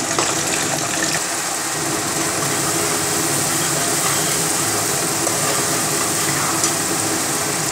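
Spice masala sizzling steadily in hot oil and ghee in a pressure pan as it is fried and stirred.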